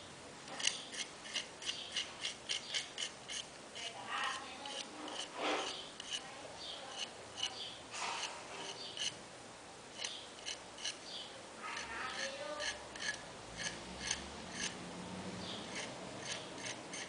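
Irregular series of short, sharp clicks and scrapes, about two to three a second, from hand work with a small tool on hard material.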